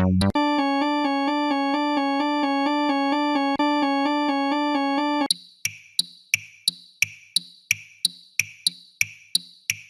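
Railroad crossing warning sounds, synthesized. A steady electronic tone alternates between two pitches. Then, about five seconds in, a crossing bell takes over, struck about three times a second with a bright, ringing clang.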